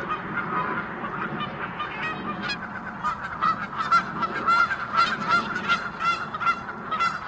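A flock of geese honking, many short calls overlapping without a break and growing denser about halfway through.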